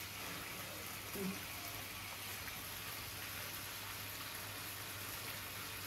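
Broccoli chicken sizzling in a wok on the stove, a steady soft hiss as its liquid cooks off and the curry dries. A short murmur of a voice about a second in.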